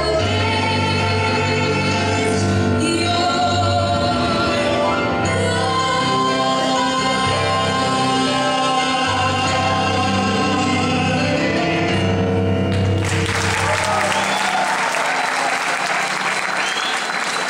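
A man and a woman sing the closing held notes of a duet over backing music. About three-quarters of the way through the music ends and the audience breaks into applause.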